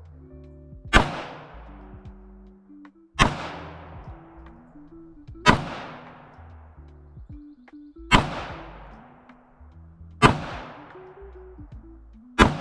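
Bear Creek Arsenal Grizzly 101 9mm pistol fired six times in slow, aimed succession, about one shot every two seconds, each shot ringing out, with background music underneath.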